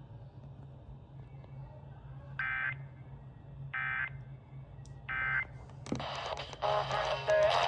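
Emergency Alert System end-of-message data tones: three short, identical bursts of raspy digital warbling, about 1.3 seconds apart, signalling that the alert is over. About six seconds in, the station's regular programme audio comes back.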